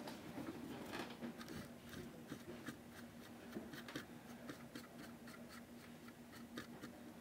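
Faint, scratchy brushing: a small brush scrubbing weathering chalk onto the side of a model freight car in quick short strokes, over a steady low hum.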